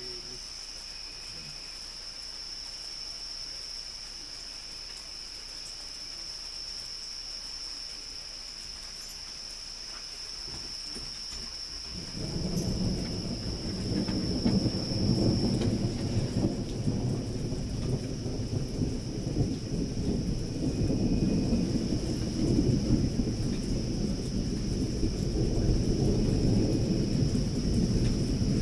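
Insects chirring steadily at a high pitch, then thunder: about twelve seconds in, a deep rumble starts suddenly and rolls on for over fifteen seconds, swelling and easing.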